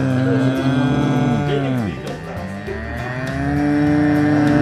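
Several cows mooing at once in long, overlapping moos. About two seconds in, one call slides down low before the others swell again.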